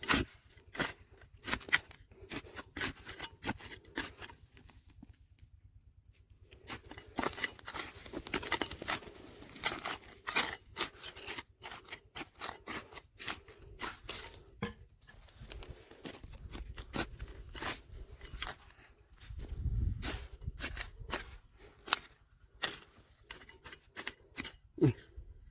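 Gravel and stones being scraped and knocked about while digging, making a busy, irregular run of clicks and scrapes with a short pause about five seconds in.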